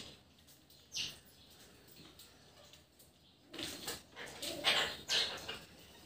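Short, harsh bird calls: one about a second in, then a quick run of them about four to five seconds in.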